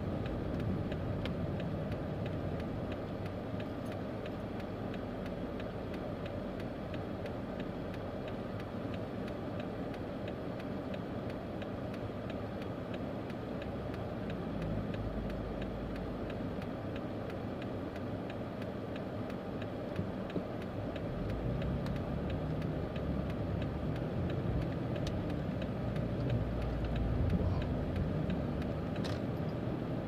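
Car cabin noise while driving: a steady low engine and road rumble that grows louder about two-thirds of the way through as the car pulls away.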